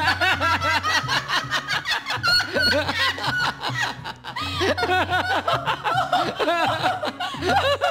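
Several people laughing and chuckling over background music with a low bass line that steps from note to note.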